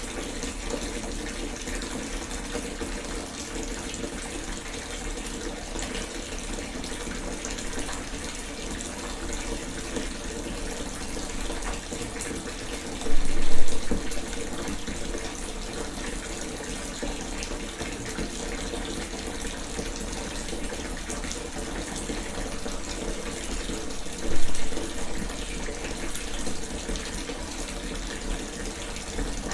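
A bath filling from a running tap: a steady rushing of water. Two brief, much louder bursts come about halfway through and again near the end.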